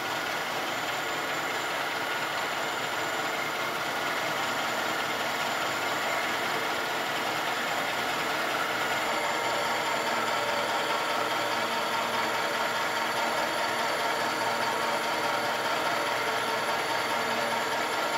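Vertical milling machine running with a one-inch end mill plunging slowly into a brazed cast iron lever, cutting a slot: a steady machine sound with several constant tones, a little louder after the first few seconds.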